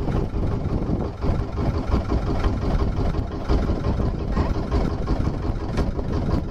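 Small wooden tour boat's engine running steadily under way, a continuous low-pitched drone.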